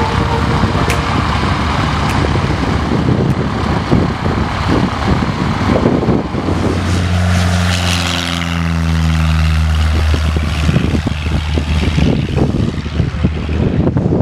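Single-engine propeller plane at full power on its takeoff roll on a grass strip, passing close by: the engine drone swells to its loudest about halfway through and then falls away, over a steady rushing noise.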